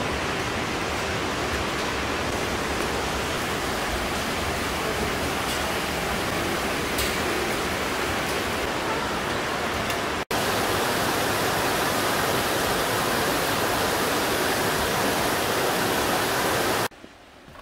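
Steady rush of running water, a mountain stream tumbling over rocks. It breaks off for an instant a little over ten seconds in, then resumes and drops away abruptly near the end.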